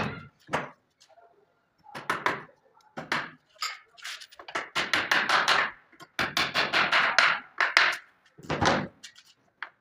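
Repeated strokes of a hand tool working wood, coming in irregular groups and then a quicker run of about four or five strokes a second.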